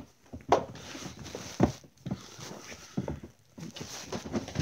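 Handling and rummaging noises: a few irregular sharp knocks, two of them loud, among rustling, as plastic DVD cases are sorted through.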